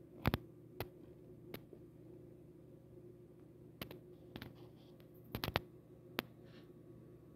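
A scattered run of short, sharp clicks and taps over a steady low hum, the loudest a quick cluster about five and a half seconds in.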